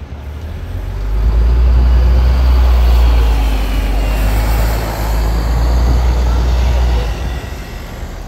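A heavy road vehicle passing close by: a low engine rumble with tyre and road noise that swells about a second in, holds for some six seconds and then falls away.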